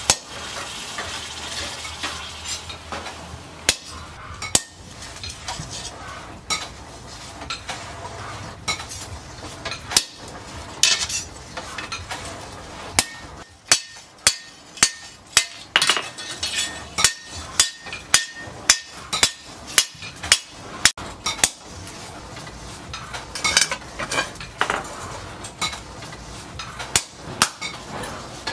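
Blacksmith's hand hammer striking a hot steel knife blade, cut from a tractor disc plough, on an anvil: scattered blows at first, then a steady run of about two sharp strikes a second through the middle.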